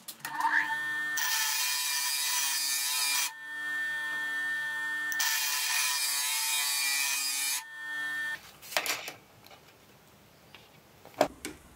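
Ryobi bench grinder motor spinning up with a short rising whine, then running steadily while a hardened steel lathe dead centre is pressed against the wheel twice, a harsh grinding hiss of a couple of seconds each time, deepening the flat ground into it to make a half centre. The grinder stops about eight seconds in, followed by a few faint clicks.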